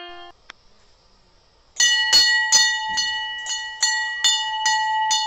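Hanging brass temple bell rung by hand, struck again and again about two and a half times a second starting near the two-second mark, each strike ringing on so the tones blend into a steady ring.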